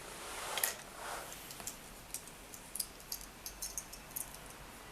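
Plastic Transformers action figures being handled and swapped on a surface: a couple of light clicks in the first second or so, then a scatter of faint ticks and taps.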